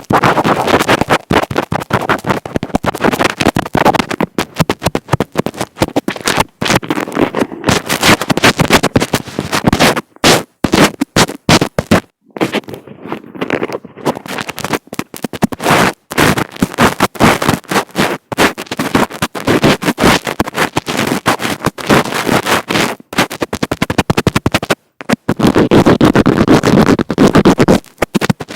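Fingers rubbing, scratching and tapping directly on an earphone microphone. This makes loud, dense, crackly scratching with a few brief sudden cut-outs.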